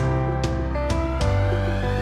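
Instrumental background music with held notes and a few sharp hits, a rising sweep starting about halfway through.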